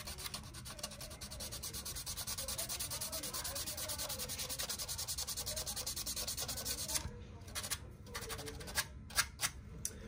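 Small piece of sandpaper rubbed quickly back and forth over the edges of a small scale-model cage part, an even run of several short hissing strokes a second. It stops about seven seconds in, and a few light clicks and taps follow.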